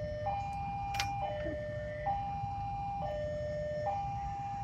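Railway level-crossing warning alarm sounding its electronic two-tone signal, a high and a low tone alternating about once a second, the sign that a train is approaching and the gates are closing. A steady low rumble lies beneath it.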